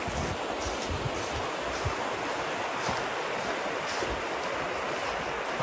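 Shallow, rocky river running over stones in rapids: a steady, even rush of water.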